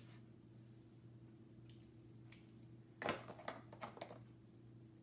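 Faint felt-tip marker strokes on poster paper as a word is finished, then a quick run of clicks and taps about three seconds in as the marker is handled and put away.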